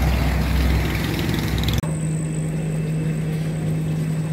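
Fish deep-frying in a large wok of hot oil: a dense, steady sizzle over a low rumble. It cuts off abruptly about two seconds in and gives way to a steady low hum.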